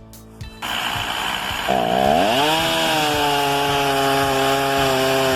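Chainsaw engine revving up: a loud rush of noise starts just under a second in, then at about two seconds the engine note dips and climbs to a steady high whine at full throttle.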